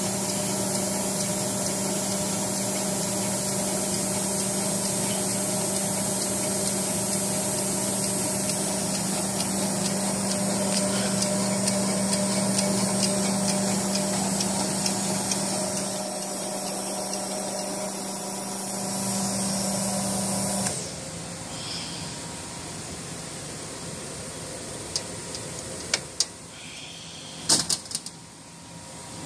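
Schaefer Model-10 capsule filling machine running with a steady electric hum and hiss. It shuts off abruptly about two-thirds of the way through, leaving a quieter background with a few sharp clicks and knocks near the end.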